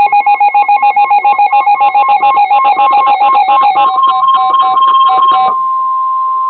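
Weather radio alert announcing a severe thunderstorm warning: rapid electronic beeping, about ten beeps a second, over the steady warning alarm tone. The beeping stops about five and a half seconds in, and the tone carries on alone.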